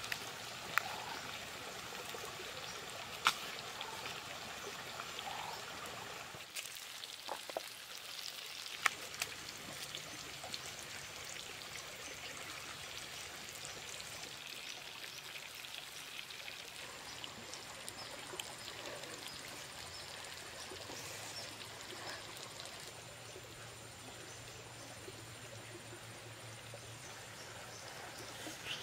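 Steady trickle and flow of a small shallow stream, with a few sharp clicks and knocks in the first several seconds.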